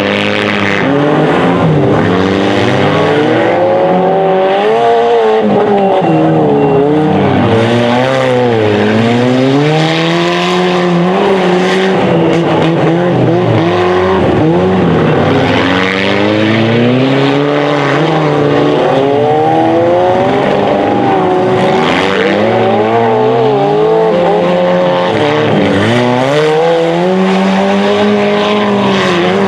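Engines of stock front-wheel-drive derby cars revving up and down as they race round a dirt track. Their pitch rises and falls repeatedly as the cars speed up and lift off through the turns.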